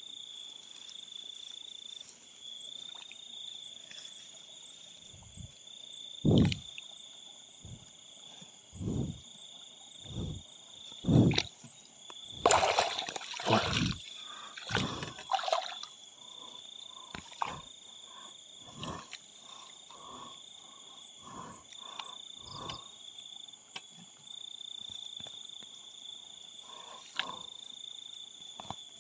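Night insect chorus of crickets, a steady high trill, broken by several loud splashes and sloshes in shallow water between about six and sixteen seconds in as the grass and set lines are worked by hand. In the second half comes a run of short, low calls about one a second.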